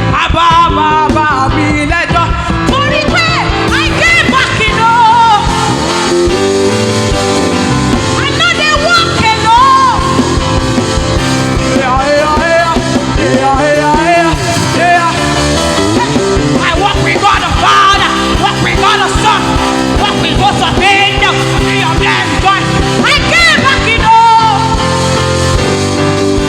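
Loud live gospel worship music: a band playing, with a singing voice over it.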